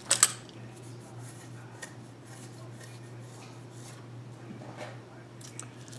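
Wooden bead necklace being handled: a short sharp clatter of beads just after the start, then faint clicking and rubbing as the beads shift.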